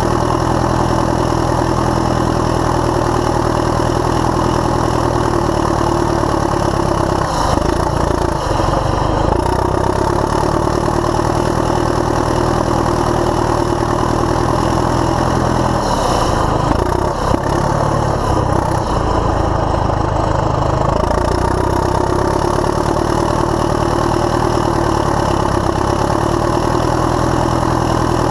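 Caterpillar D7E bulldozer's diesel engine running steadily close up while the dozer pushes a blade-load of dirt, with two brief changes in its sound, about a quarter of the way in and again around the middle.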